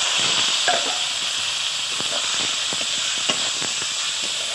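Garlic, dried red chillies and green chillies sizzling in hot oil for a tempering (chhunka), a steady frying hiss with scattered light clicks of stirring in the pan.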